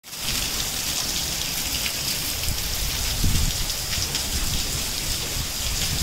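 Heavy rain falling steadily on a paved courtyard and potted plants, a dense even hiss. A brief low rumble swells about three seconds in.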